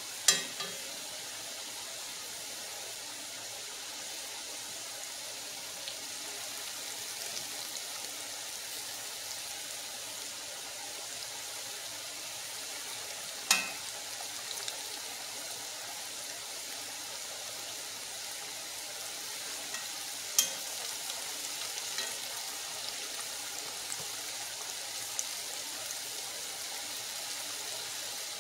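Floured cube steak frying in hot oil in a cast-iron skillet: a steady sizzle, with a few sharp clicks, about a second in, in the middle and again a little later.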